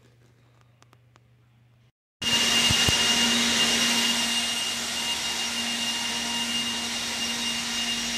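A faint low hum, then after a cut about two seconds in, a loud, steady rushing machine noise with a constant high whine and a lower hum, like an air blower running.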